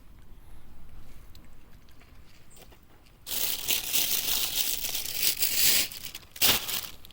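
Crinkling, rustling noise for about two and a half seconds from around the middle, then a short second burst near the end.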